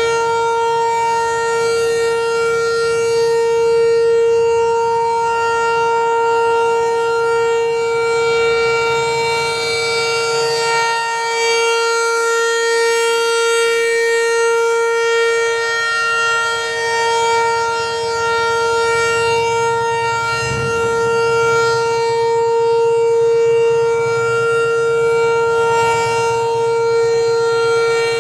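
ASC Tempest T-128 outdoor warning siren sounding a steady alert tone, swelling and fading slightly as the rotating horn sweeps round.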